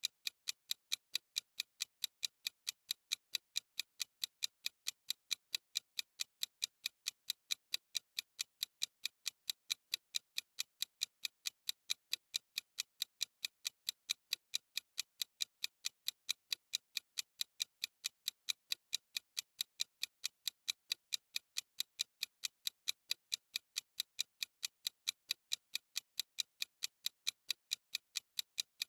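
Countdown timer's clock-style ticking sound effect: a steady, even run of sharp, high, dry ticks, several a second.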